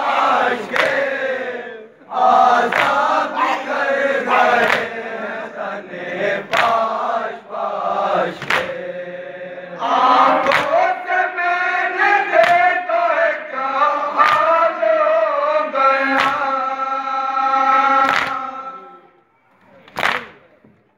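Group of men chanting a noha (Shia mourning dirge) in unison, with collective chest-beating (matam) strokes landing together about every two seconds. The chant fades out near the end, with one last stroke after it.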